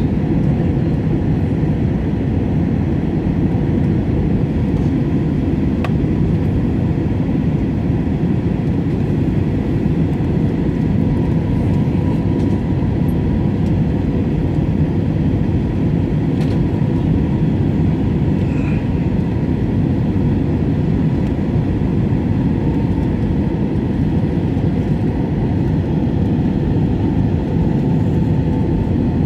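Airbus A320 cabin noise during the descent to landing: a steady, loud low roar of the jet engines and the air rushing past the fuselage, with a faint constant high hum above it.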